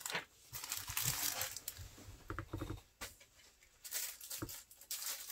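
Plastic and paper rustling and crinkling as a diamond painting kit, a canvas with its clear plastic pack of drill bags, is picked up and moved off a table, in two bursts, followed by a few light taps near the end.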